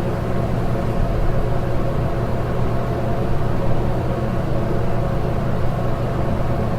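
Room tone of a shower stall in a gym locker room: a steady low hum of air with several faint steady tones, unchanging throughout.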